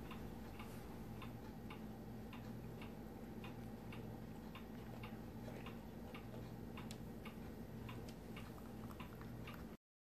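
Faint, even ticking, a little under two ticks a second, over a low steady hum; the sound cuts off just before the end.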